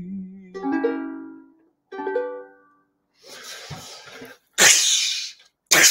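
Ukulele strummed twice to close a song, each chord ringing out and fading. Then come three rushing, hiss-like bursts of noise, the later two much louder.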